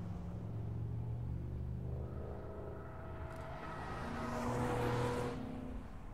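Car engine under acceleration: a steady engine note for the first couple of seconds, then its pitch climbing and growing louder, loudest about five seconds in before it cuts off abruptly.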